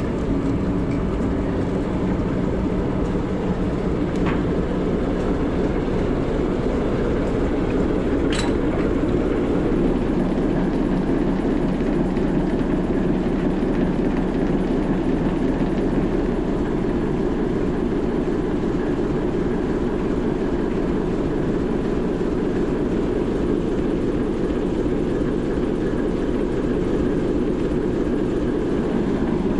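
Diesel shunter engine idling steadily beside a stationary steam locomotive, a deep even drone, with a sharp click about eight seconds in.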